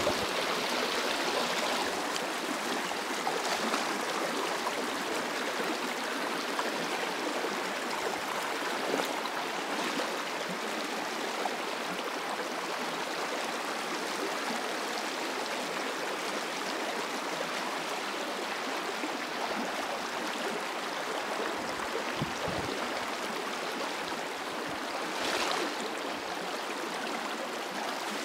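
Shalmala river water flowing over its stone bed in a steady rush, with a brief louder swell near the end.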